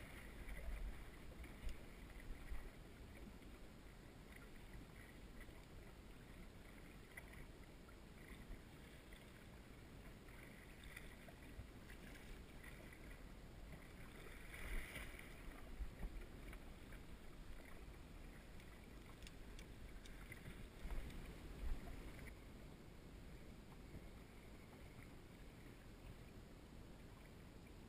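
Faint water lapping against the hull of a small drifting boat, with low wind rumble on the microphone. A brief louder splash comes about halfway through.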